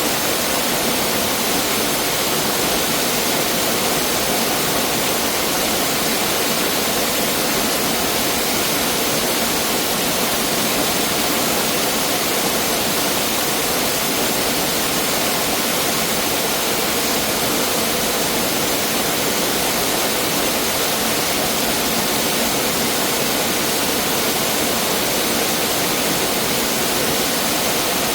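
Mountain stream water rushing steadily over rocks, a constant full splashing flow without breaks.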